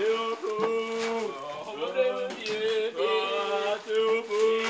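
A man singing a slow, chant-like song, holding long level notes of about a second each with short breaks between them.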